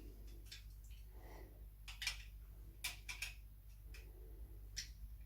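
A few small, sharp clicks and taps of hand work on a wall switch and its wires, over a faint steady hum; the loudest comes about two seconds in.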